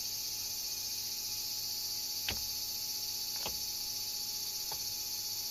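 Kitchen knife knocking lightly on a cutting board a few times as a small fish is gutted for filleting, over a steady high-pitched hiss.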